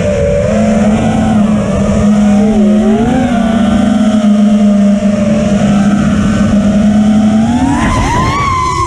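Brushless motors and propellers of a 5-inch FPV racing quadcopter (iFlight Xing 2207 1800KV motors) whining, heard from the onboard camera, the pitch bending up and down with throttle during fast manoeuvring. Near the end the whine climbs sharply as the throttle is punched.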